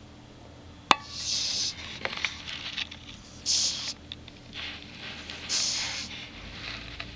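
Dog snoring in sleep: three hissing, rasping breaths about two seconds apart. A sharp click sounds about a second in.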